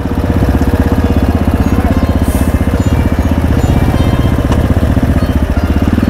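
Zongshen RX3's 250 cc single-cylinder engine running steadily at low revs, its firing pulses heard as a fast, even beat.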